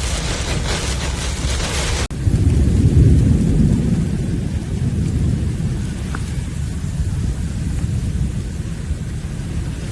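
Heavy rain hissing, then about two seconds in an abrupt change to a deep rolling rumble of thunder that swells and slowly dies away.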